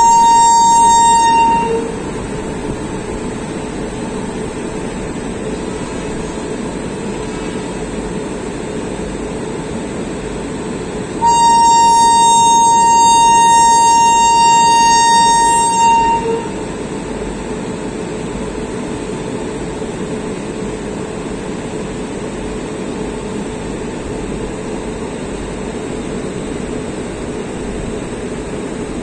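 WAP-7 electric locomotive's horn: a steady blast that ends about a second and a half in, then a second steady blast of about five seconds near the middle. Between and after the blasts, the train's steady rumble as it moves slowly.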